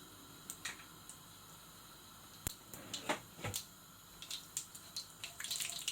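Mustard seeds popping in hot oil in a pan: scattered, irregular sharp pops and crackles over a faint background.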